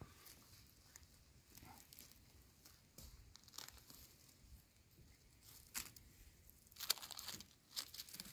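Faint crackling and rustling of dry leaves and twigs on the forest floor, with a cluster of sharper crackles near the end.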